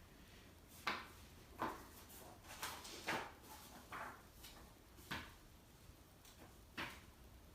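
Packaging and parts being handled during unboxing: about eight short knocks and scrapes, roughly one a second, at an uneven pace.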